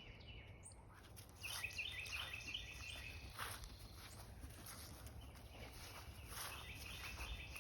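A bird singing two phrases of quick repeated notes, one early and one near the end, over faint footsteps and rustling.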